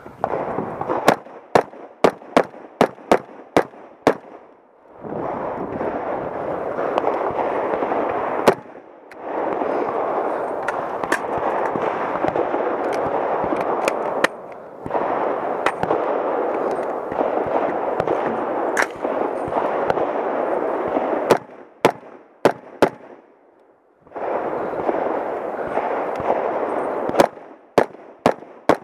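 Gunfire from a .300 Blackout AR-15 carbine: a quick string of about six shots at the start, then single shots and short pairs spread out, with a steady rushing noise between them. Near the end a rapid string of shots from a Smith & Wesson 327 TRR8 .357 Magnum revolver at steel plates.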